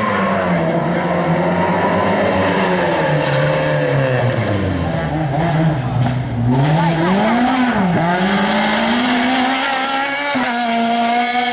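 Rally car engine revving hard through a slalom course, its pitch rising and falling with throttle and gear changes. It drops away about five seconds in and dips sharply near eight seconds before climbing again and holding high near the end.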